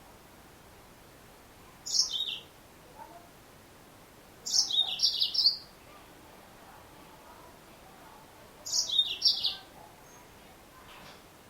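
Female yellow-fronted canary (Mozambique finch) calling: three short bursts of high, quick chirps a few seconds apart, the middle and last bursts longer than the first.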